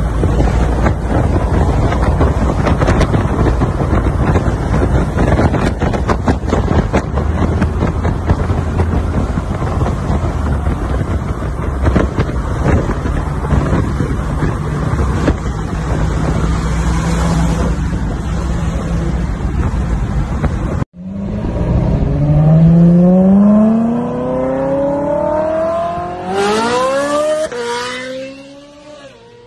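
Heavy wind and road noise from a moving car pacing a supercar at speed. About 21 seconds in it cuts to a Ferrari 458's V8 accelerating hard, its pitch climbing through the revs with an upshift near the end, then fading as the car pulls away.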